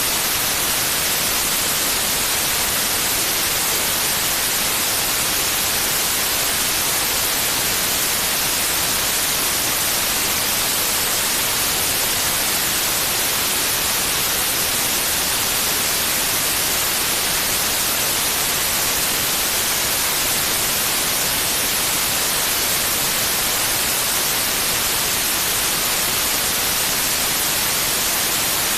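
Steady white noise: an even, unchanging hiss, strongest in the high range, with no rhythm or breaks.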